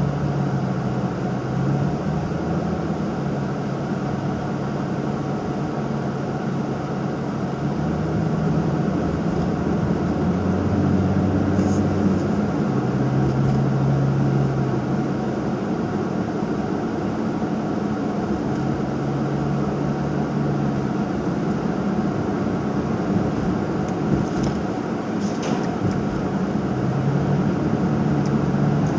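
Nissan Fuga 350GT's V6 engine and aftermarket quad-outlet exhaust droning inside the cabin while cruising, mixed with steady road and tyre noise. The low hum shifts up and down in pitch every few seconds as the speed changes.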